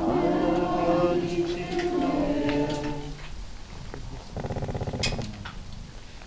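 Congregation chanting the liturgical response together in unison for about three seconds. A short buzzing rattle, about a second long, follows about four seconds in.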